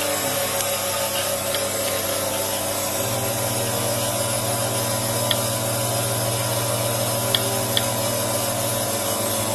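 Two-stage rotary vane vacuum pump running steadily, a continuous mechanical drone. A low hum grows louder about three seconds in and eases near the end, with a few faint clicks.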